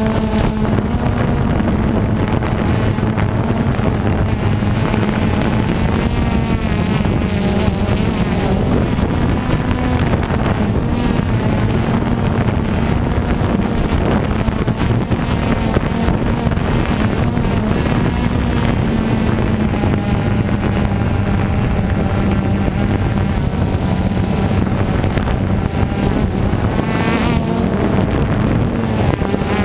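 DJI Phantom 2 quadcopter's electric motors and propellers buzzing in flight, heard from the camera carried on the drone, the pitch wavering as the motors speed up and slow down to hold it steady. Wind rushes over the microphone throughout.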